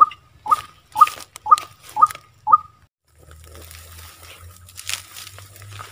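White-breasted waterhen calls: six short, clipped notes repeated about twice a second, stopping a little over two and a half seconds in. After that only a faint low hum and rustle remain.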